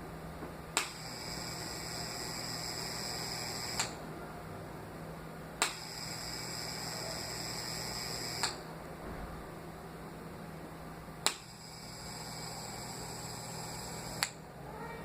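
Electric fan running with a steady low hum. Three times a sharp click sets off a high whine lasting about three seconds, ended by another click: the fan's abnormal noise.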